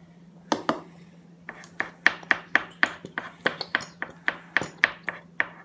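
Freshly mixed, sticky slime being squeezed and pressed by hand, giving a quick run of sharp clicks and pops, about four a second, from about a second and a half in.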